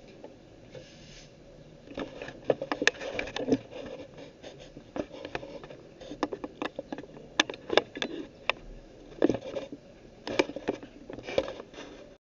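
Handling noise from a phone camera being moved by hand: quiet at first, then irregular light clicks, taps and short scrapes from about two seconds in.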